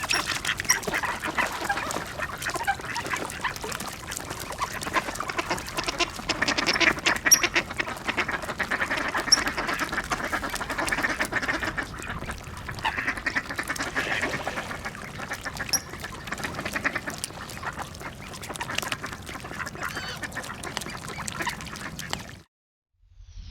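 A large flock of mallard ducks quacking in a dense, overlapping chorus while they feed. It cuts off suddenly near the end.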